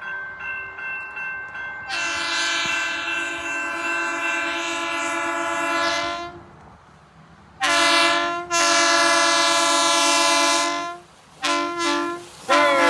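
Horn of a passing CSX rail maintenance vehicle blown in a horn show: one long blast of about four seconds, then a short blast, another long one and two quick short blasts near the end.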